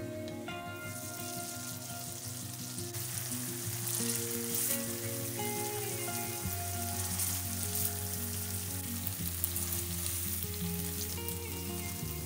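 Flour-coated chicken breasts sizzling in a frying pan of oil and beer, the sizzle starting about a second in and running steadily, with background music underneath.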